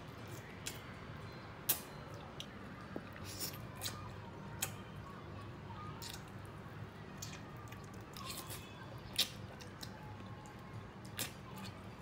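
A person chewing and gnawing pieces of braised soft-shell turtle, with wet mouth smacks and slurps. Irregular sharp clicks run through it, the sharpest about 2 seconds in and about 9 seconds in.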